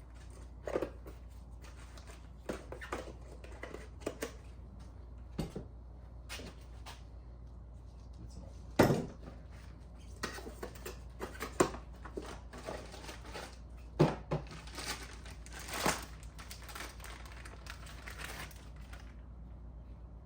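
Scattered clicks and knocks of hand tools and parts being handled during a coil pack and spark plug job, the loudest knock about nine seconds in, over a steady low hum.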